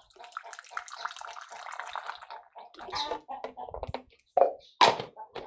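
Farmyard animals: a dense, chattering stretch of mixed calls, then a few separate, louder calls, the loudest near the end.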